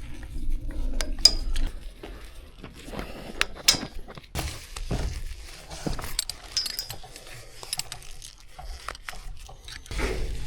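Irregular clinks, taps and knocks of metal hardware being handled, with some rustling and a low rumble underneath.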